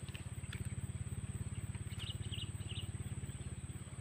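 A steady, low engine throb pulsing rapidly and evenly, with a thin continuous high whine over it and a few faint bird chirps about two seconds in.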